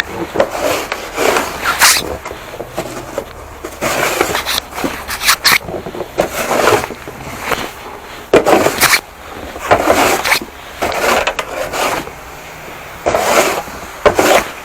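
Snow shovel scraping snow and ice off a walkway in a series of short, repeated strokes, about one every second.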